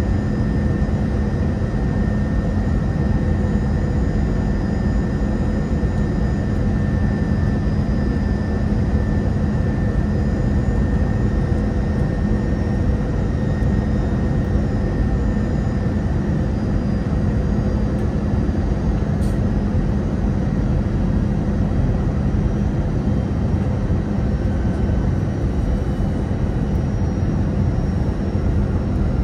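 Airbus A321 in flight heard from inside the passenger cabin: steady jet engine and airflow noise with a constant low hum and a faint high whine.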